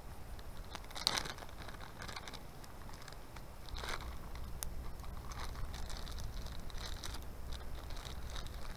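Scattered clicks, scrapes and rustles of camp cooking gear being handled while a soup-and-noodle dinner is prepared in a pot, over a steady low rumble.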